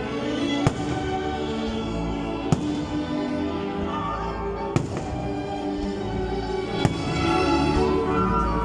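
Aerial firework shells bursting with four sharp bangs, about two seconds apart, over loud music with long held notes.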